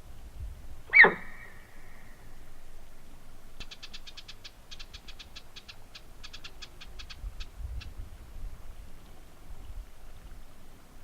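A single sharp animal call about a second in, sliding steeply down in pitch with a held whistling tone trailing it. This is followed by a rapid run of clicking chatter lasting about four seconds.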